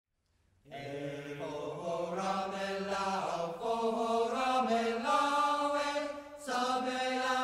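Intro music of vocal chanting in long held, slowly shifting notes, starting about a second in, with a brief dip shortly before the end.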